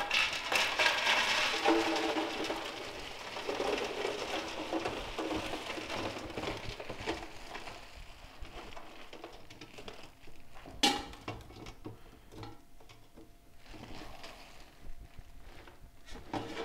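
Ice cubes poured from plastic bags into a sink around a stainless steel brew kettle: ice clattering against the kettle and sink, with plastic crinkling. It is densest in the first few seconds and thins to scattered clinks later, with one sharp knock about eleven seconds in.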